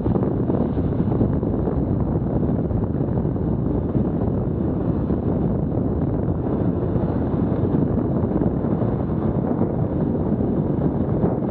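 Wind buffeting the microphone of a Garmin VIRB action camera on a moving bicycle: a steady, low rushing rumble.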